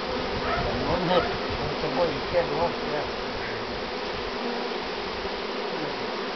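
A large cluster of honeybees buzzing at a hive entrance: a dense, steady hum, with a few louder wavering notes in the first three seconds.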